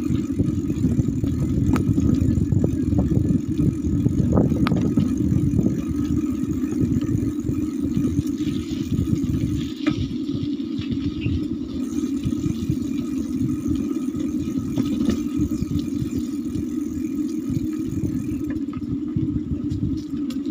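A small vehicle driving steadily: a dense, rough engine and road rumble, with a few short knocks along the way.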